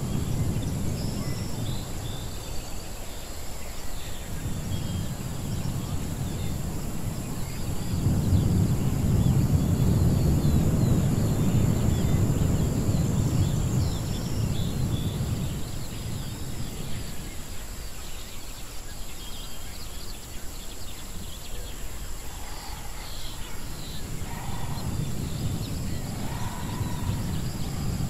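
Designed outdoor ruins ambience soundscape: a continuous low rumble that swells louder for several seconds in the middle, with scattered high chirps and a few animal calls near the end.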